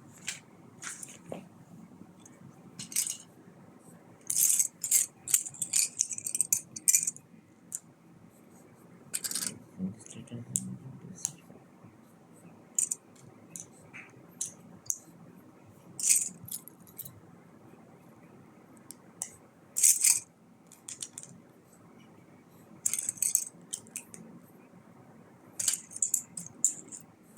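Small plastic Lego pieces clicking and rattling as they are handled and rummaged through by hand: scattered single clicks with a few short runs of quick clattering.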